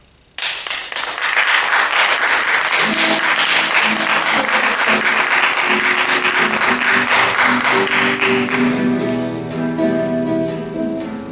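Audience applause breaks out suddenly about half a second in and dies down over the last couple of seconds. Music comes in under it about three seconds in.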